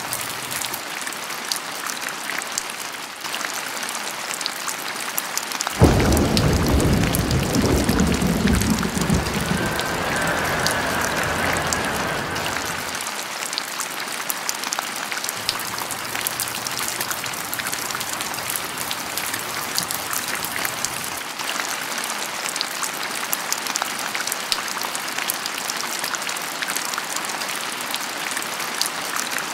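Steady rain falling and pattering. About six seconds in, thunder cracks suddenly and rumbles away over several seconds.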